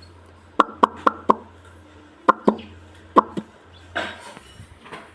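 A series of short, sharp pops in quick runs of two to four, over a low steady hum.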